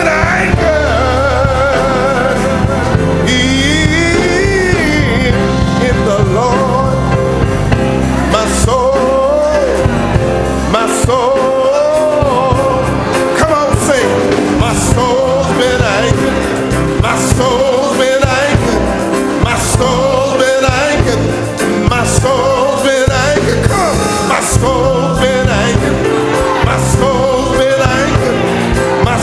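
Gospel music: sung voices with vibrato over a band with drums and steady bass.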